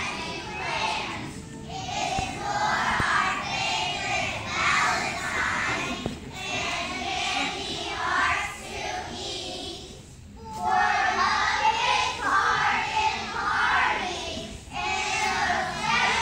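A chorus of young children's voices in unison, in short phrases, with a brief pause about ten seconds in.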